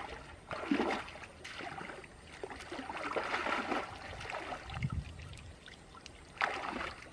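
Water splashing and sloshing as a person wades through knee-deep muddy water, in uneven surges a few seconds apart.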